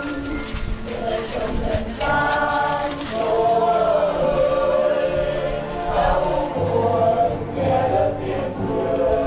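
Church choir singing a Catholic hymn, voices holding long notes with vibrato; a low held bass note joins about two-thirds of the way in.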